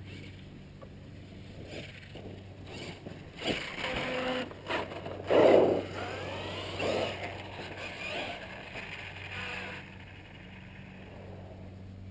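Brushless electric motor and drivetrain of an HPI Savage Flux 1/8-scale RC monster truck on 6S power whining in bursts as the truck speeds up and slows, the pitch rising and falling, loudest about five and a half seconds in.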